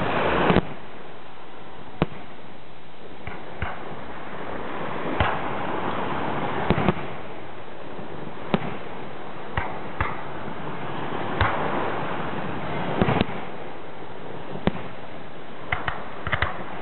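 Aerial fireworks shells bursting: about fourteen sharp booms at irregular gaps of one to two seconds, some trailing off briefly, over a steady background rush.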